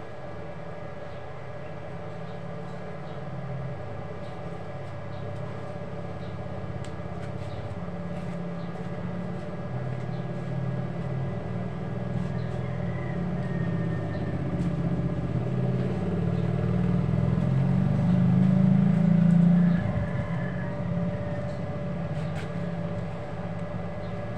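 A motor vehicle's engine rumbling, growing gradually louder to a peak near the end and then dropping away, over a steady hum.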